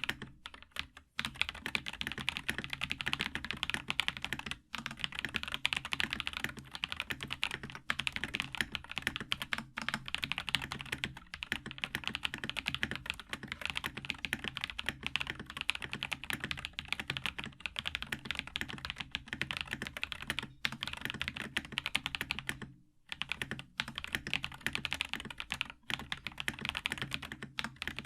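Fast, continuous typing on a custom mechanical keyboard: a ZMX CIY68 barebones board fitted with Akko V3 Cream Blue tactile switches, giving rapid clacky keystrokes. There are brief pauses about a second in, near five seconds and about two-thirds of the way through.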